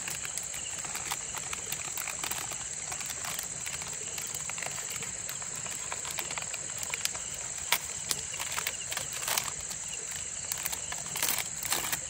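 A steady high-pitched chorus of night insects over the even rush of the forest creek, broken by a few sharp clicks and rustles of handling, the loudest about eight seconds in.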